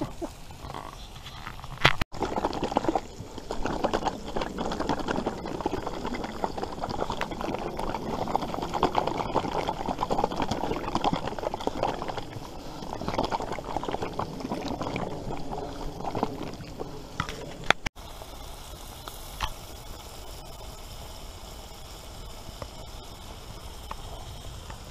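Food frying in pans set on campfire embers, giving a dense sizzle and crackle. About eighteen seconds in it changes abruptly to a quieter, steady hiss.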